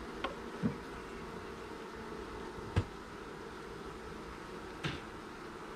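Honeybees buzzing steadily around an open hive, with four short knocks as hive boxes and frames are handled, the loudest about three seconds in.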